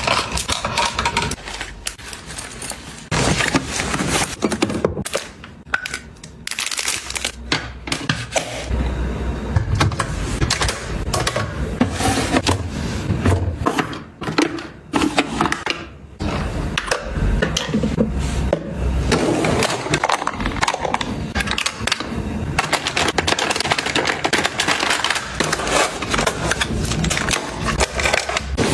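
Makeup items and plastic containers being handled and sorted: a steady stream of clicks, taps and clattering knocks, with a few short pauses.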